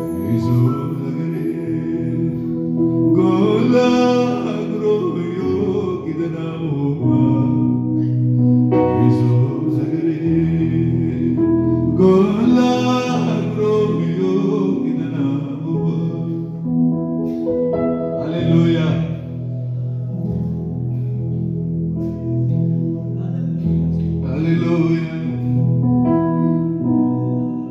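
A man singing a Hadiya gospel song (mezmur) into a microphone over sustained electronic keyboard chords, amplified through a PA system. His sung phrases come and go over the held chords.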